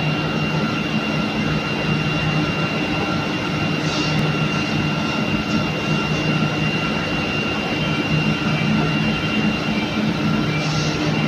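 Spunbond nonwoven fabric production line running: a steady, even drone of motors and fans with several steady hums and a high whine. Short hisses come about four seconds in and again near the end.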